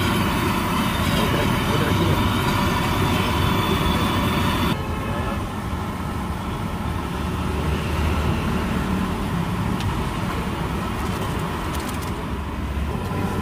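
Street-stall gas burner under a wok running with a steady rushing noise. The noise drops suddenly and turns duller about five seconds in, as the flame goes from a tall orange blaze to a low blue one.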